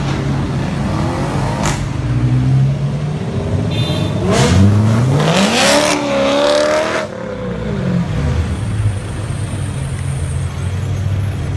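Sports car engines running as the cars pull away. About four seconds in, one engine revs hard, rising in pitch for about two seconds, holds briefly, then falls back to a low rumble.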